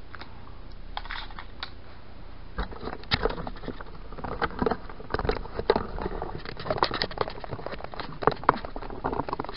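Camera being picked up and handled: irregular clicks, taps and rustles against the microphone, starting about two and a half seconds in.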